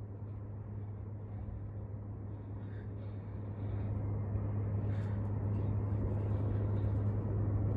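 Steady low hum under a rumbling noise, growing a little louder about four seconds in.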